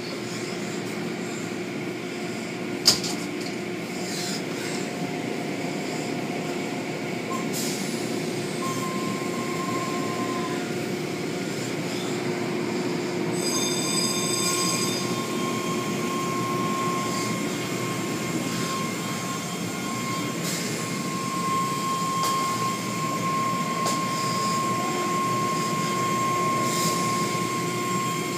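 Automatic tunnel car wash machinery running: a steady mechanical drone with a high whine, over the hiss of water spray as the cloth curtains sweep a car.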